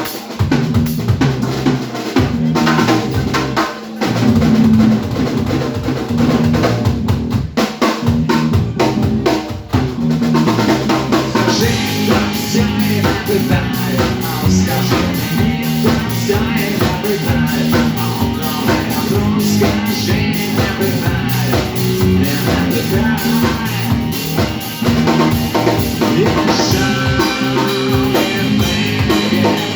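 Music driven by a drum kit with bass drum and snare. About ten seconds in, fuller instruments join the beat.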